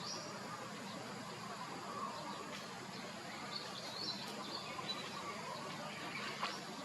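Steady outdoor background noise with short, high chirps every second or so and a few sharp clicks.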